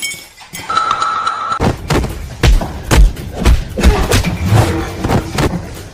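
Heavy thumps repeating at an even pace of about two a second, starting a little over a second and a half in, after a brief steady high tone.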